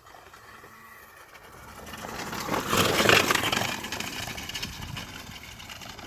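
A pit bike riding past: its motor and tyres swell to a peak about three seconds in, then fade as it moves away.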